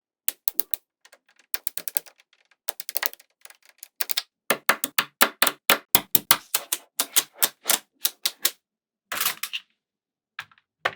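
Small magnetic balls clicking sharply as they snap onto one another, a scattered run of clicks that settles into about three a second in the middle, with a brief rattle a little after 9 seconds.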